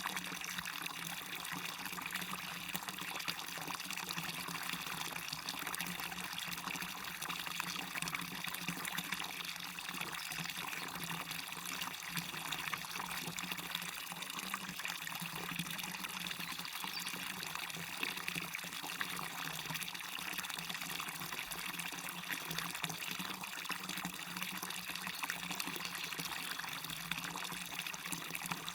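Waterfall on a river, water pouring and splashing in a steady, unbroken rush.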